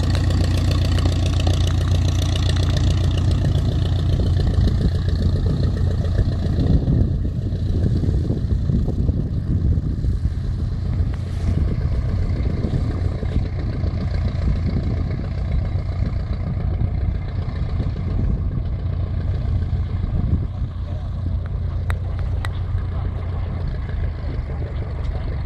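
de Havilland Tiger Moth biplane's four-cylinder Gipsy Major engine running steadily at low taxiing power, its propeller turning as the aircraft taxies past and away. It grows more distant, its sharper upper tones fading about seven seconds in.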